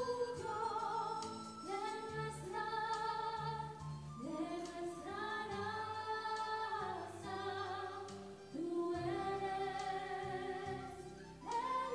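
Two girls singing a slow song together, long held notes with vibrato, over a soft low accompaniment; the singing swells again near the end.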